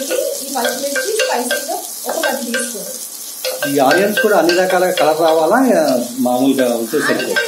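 Sliced onions and green chillies sizzling in ghee and oil as a wooden spatula stirs and scrapes them around a non-stick pot, with the knocks of the spatula against the pan. The stirring gets louder from about halfway through.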